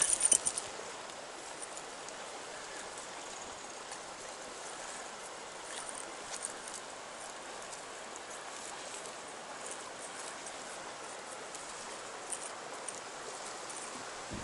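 River water rushing steadily, with a short clatter of clicks right at the start and a few faint ticks later.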